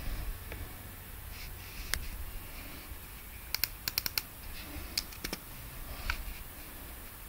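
Scattered key taps on a laptop keyboard: a single tap about two seconds in, a quick run of several taps around three and a half to four seconds, and a few more single taps after.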